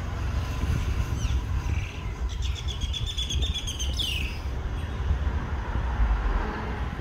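A bird calls: a brief high note about a second in, then a longer high, ringing call from about two to four seconds in that ends in a falling slide. A low steady rumble runs underneath.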